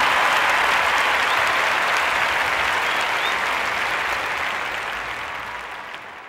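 Crowd applause, a dense steady clapping that fades out toward the end.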